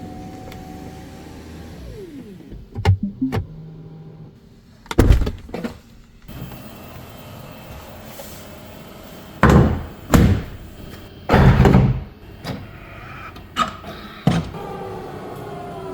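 Tesla Model 3 body sounds: a small electric motor whirring steadily, then winding down in pitch about two seconds in, followed by clicks. Several heavy door thunks come from about the middle on, and another motor whir falls in pitch near the end.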